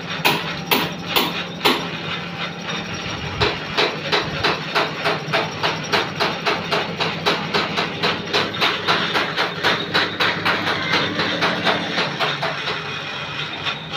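A machine tool working a stainless-steel bush for threading: a steady motor hum under sharp, regular metallic clicks. The clicks come about two a second at first, then after a short pause pick up to three or four a second.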